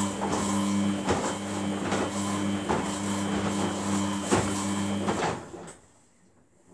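Samsung WF80F5E0W4W front-loading washer tumbling its drum in the wash: a steady motor hum with wet clothes and water sloshing and thumping in the drum at about one to two knocks a second. The drum stops about five and a half seconds in, a pause in the tumbling.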